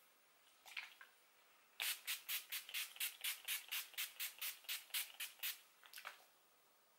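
Pump-action spray bottle of makeup setting spray misting the face: a rapid run of about seventeen short hissing sprays, four to five a second, then one or two more after a brief pause.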